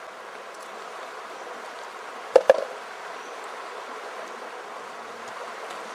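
Shallow mountain stream running over a pebble bed, a steady even wash of water noise. Two sharp knocks come a split second apart about halfway through.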